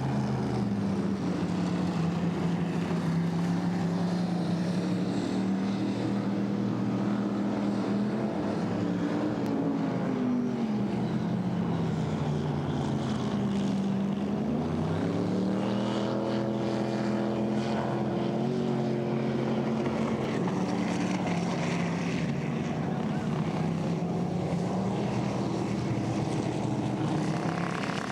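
Racing speedboat engine running hard. Its note falls starting about ten seconds in, then climbs again around fifteen seconds, as the throttle comes off and goes back on.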